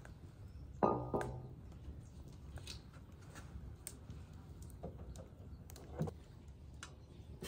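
Scattered sharp knocks and light clicks, as of things being handled while cooking. The loudest comes about a second in with a brief ringing, a second follows just after, and another comes about six seconds in.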